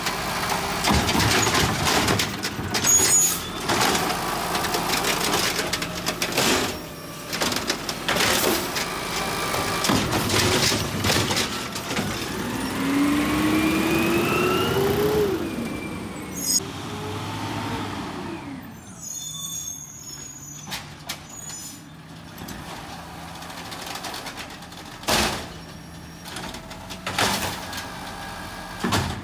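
Automated side-loading garbage truck emptying a curbside cart: its diesel engine runs under a series of bangs and knocks from the cart and lifting arm, and a hydraulic whine rises in pitch about halfway through. After that it goes quieter, with a few more single bangs near the end.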